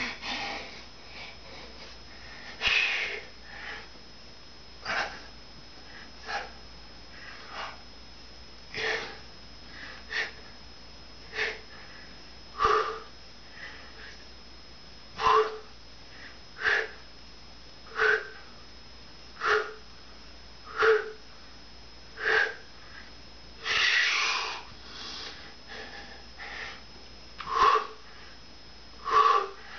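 A man breathing out hard in short puffs, about one every one and a half seconds, in time with push-ups, and one longer, heavier breath a little over three-quarters of the way through. The breaths are laboured with the effort of the set.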